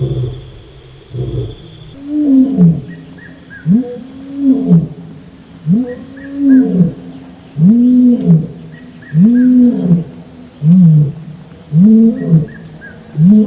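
African lion roaring: after a rougher, quieter start, a run of about ten deep calls begins about two seconds in. Each call rises and falls in pitch, lasts under a second, and they come about once a second.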